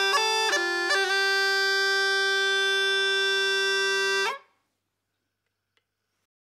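Estonian bagpipe (torupill) playing the last notes of a folk tune over a steady drone: a quick run of melody notes, then a long held final note from about a second in. The pipe cuts off sharply a little after four seconds, and near silence follows.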